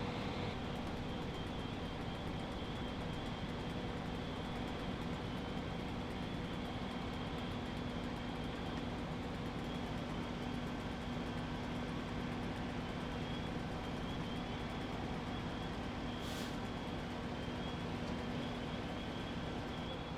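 Large engine running steadily, a constant drone with a low hum, with a brief sharp high hiss about sixteen seconds in.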